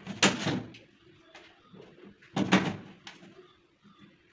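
Aluminium composite panel sheet cracking as the cut-out notch for a hinge is snapped off with pliers: two sharp cracks about two seconds apart, with a faint click between them.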